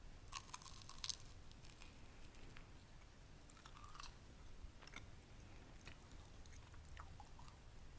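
Close-miked chewing of a crispy pan-fried egg wrap: soft, irregular crunches, thickest about half a second in and then scattered every second or so.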